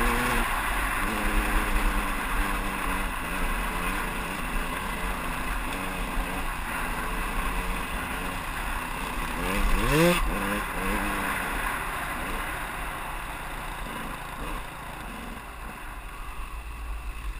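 2001 KTM 200EXC's single-cylinder two-stroke engine running at low revs on a trail ride. About ten seconds in it revs up sharply once and settles back, and it gets gradually quieter over the last few seconds.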